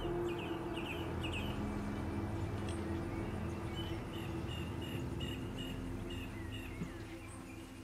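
Outdoor nature ambience of repeated short, high chirping calls, some gliding in pitch, coming in a regular run about halfway through. A low sustained drone fades out beneath them.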